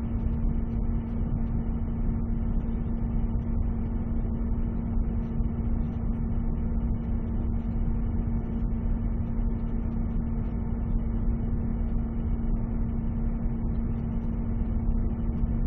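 Boiler room ambience: heating plant running with a steady low rumble and a constant hum.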